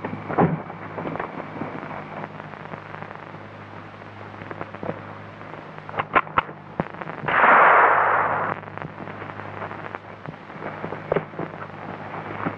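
Sharp knocks and clicks with footsteps on snowy ground, then about seven seconds in a loud rushing noise lasting just over a second as a guard is overpowered and knocked to the ground. A low steady hum runs underneath.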